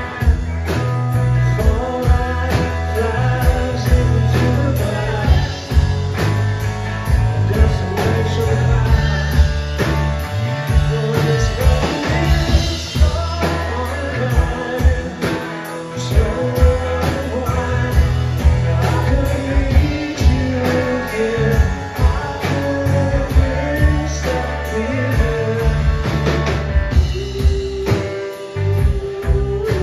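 Live rock band playing: electric guitars, electric bass and drum kit keeping a steady beat, with a man singing lead over the band.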